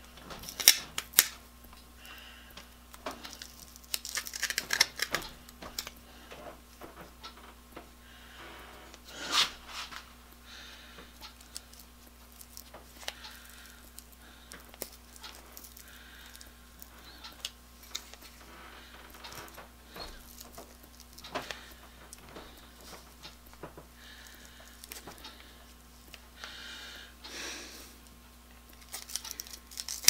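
Pliers working at the molded plastic covering of a power cord's powdered-iron choke: irregular clicks, snaps and short crunches of plastic and metal handling, the loudest crunch about nine seconds in.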